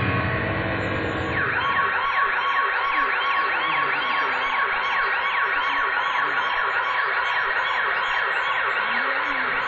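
Siren sound effect on a performance soundtrack: a fast, repeating up-and-down wail of about three sweeps a second, coming in about a second and a half in over a steady held tone.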